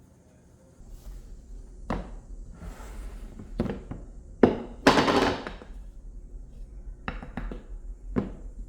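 Kitchen things being handled and set down on a counter: a string of knocks and thunks, with one longer rattling clatter in the middle that is the loudest, over a low steady hum.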